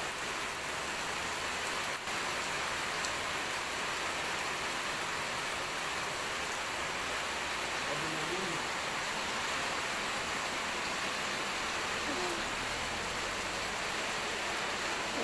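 Heavy rain pouring down with wind, a dense, steady hiss.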